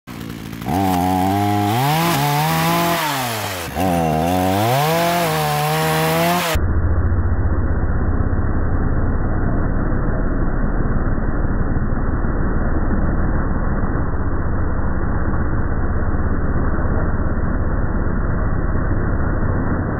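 Two-stroke chainsaw revving up and falling back twice as it cuts through a thin branch. About six and a half seconds in the sound turns to a steady, muffled low rumble with all the high end gone.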